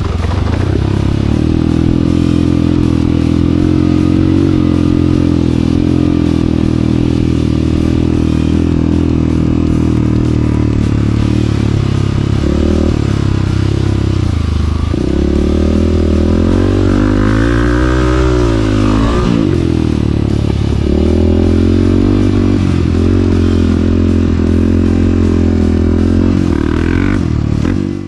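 Honda CRF250F's single-cylinder four-stroke engine running under load on a dirt track, its revs rising and falling as the rider works the throttle, with one clear swell up and back down about two-thirds of the way through.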